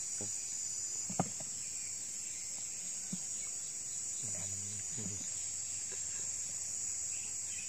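A steady, high-pitched chorus of insects trilling in the grass, with a single sharp click about a second in.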